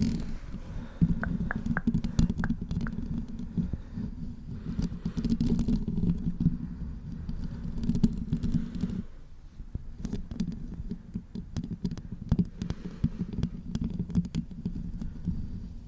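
Fingers rubbing and scratching directly on a microphone: a dense low rumble scattered with small clicks, easing off briefly about nine seconds in and then resuming.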